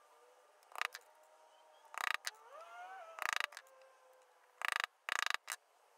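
Small screws and 3D-printed plastic parts being handled and fitted together by hand: about five short bursts of rapid clicking and rattling, each lasting well under half a second.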